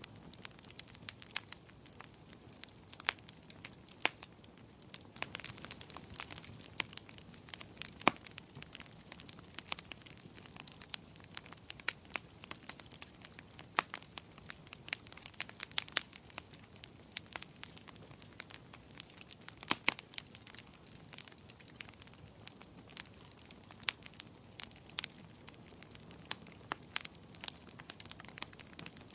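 Wood fire in a fireplace crackling: many sharp, irregular pops and snaps, several a second, over a soft steady hiss of burning.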